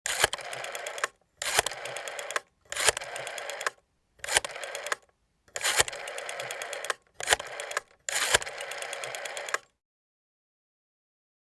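Rotary telephone dial being dialled: seven times the dial is turned and released, each release a click followed by a fast whirring train of ticks as it spins back, the runs of different lengths for the different digits.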